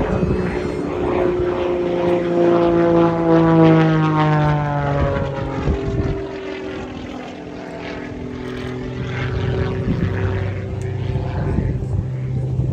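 Propeller engine of an aerobatic biplane making a low pass. It grows loudest about three to four seconds in, and its pitch drops as it goes by. Then it carries on as a steadier, lower drone.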